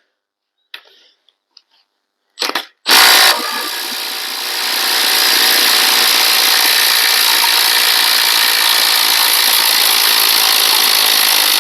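Makita XWT14 LXT cordless impact running steadily for about nine seconds, backing a fastener out of a torque tester. A few light clicks and a sharp knock come just before it starts.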